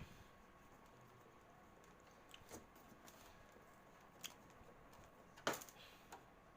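A few scattered clicks and light knocks of parts or tools being handled, the loudest about five and a half seconds in.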